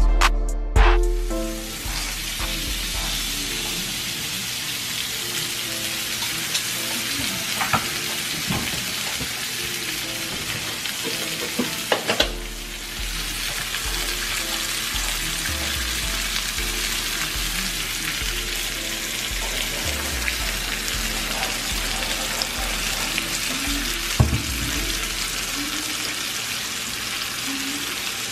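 Steaks searing in oil in a nonstick frying pan: a steady sizzle, with a few short sharp clicks around the middle and near the end.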